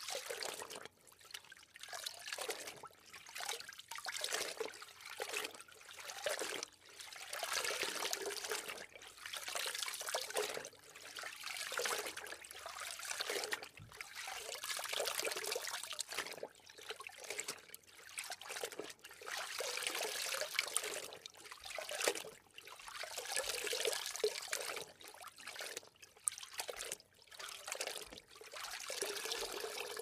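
Water splashing and sloshing in repeated irregular surges, each a second or so long with brief dips between.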